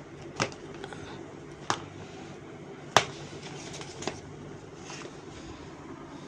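Sneakers being handled and set against a wooden floor: four short knocks about a second apart, the third the loudest, over a steady low hum.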